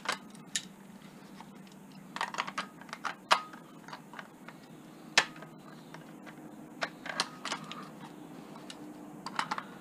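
Scattered light metallic clicks and clinks of pliers gripping and turning the lower nut on a kitchen tap, in small clusters with short pauses between.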